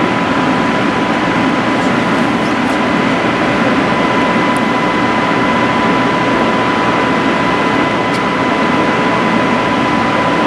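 Steady, loud fan noise, like air-moving blowers in a large hall, with a constant high-pitched whine running through it. A couple of faint ticks sit on top of it.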